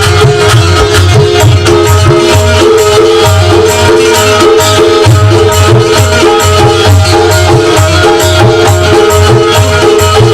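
Instrumental introduction of a qawwali song: a held, stepping melody line over a steady low drum beat and fast rattling percussion, with no singing yet.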